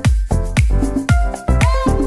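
Upbeat electronic dance music with a steady kick-drum beat, about four beats a second.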